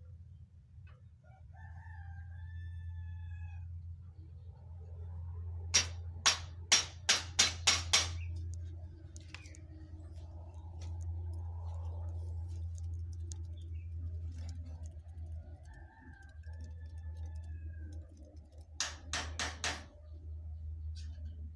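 A rooster crowing twice, once a couple of seconds in and again near the end, each crow lasting about a second and a half. Between them come two quick runs of sharp knocks, five or six each, from hand tools striking a wooden cabinet frame, over a steady low hum.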